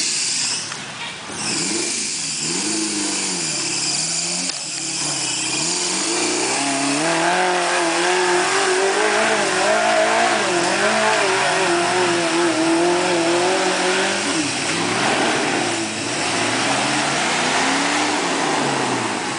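Off-road rock buggy's engine revving up and down under load as it crawls and climbs, its pitch rising and falling over and over, loudest through the middle.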